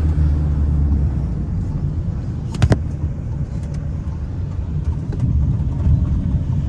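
Car engine and road noise heard from inside the cabin while driving, a steady low rumble, with two sharp clicks close together about two and a half seconds in.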